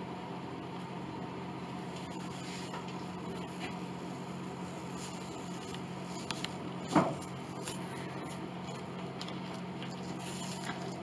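A steady low hum, with faint handling sounds of a hand on the wooden piano rim and one short, dull knock about seven seconds in.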